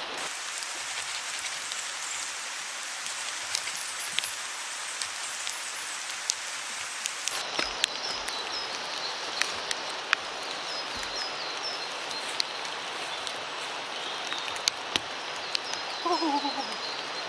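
Steady rain falling, with scattered sharp drips. From about halfway, a small bird chirps repeatedly.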